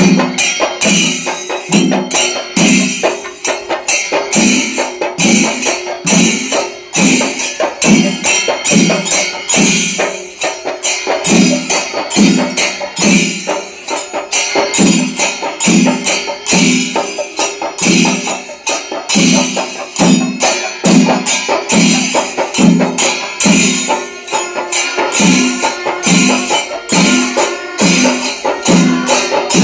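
Percussion music: deep drum strokes at a steady beat of about one and a half a second, over a continuous clash of small cymbals.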